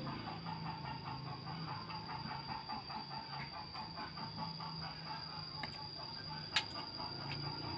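A bird calling in a rapid series of short notes, several a second, over a steady high-pitched whine; a single sharp click comes near the end.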